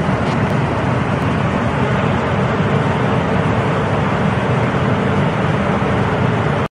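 Cassava chip drying machine running: a steady, even mechanical noise, heaviest in the low range, with no distinct rhythm. It cuts off abruptly just before the end.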